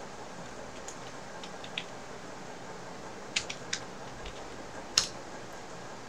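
A few scattered keystrokes and clicks on a computer keyboard over a steady low hiss, the loudest a single sharp click about five seconds in.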